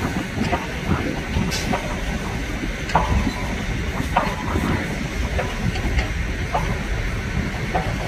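Heavy construction machinery working: a low diesel rumble with irregular metallic clanks and short squeaks.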